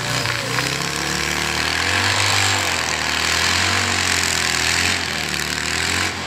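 Hot saw engines (chainsaws powered by motorbike or car engines) running. One holds a steady low idle while another's pitch wavers up and down, with a loud hiss over them.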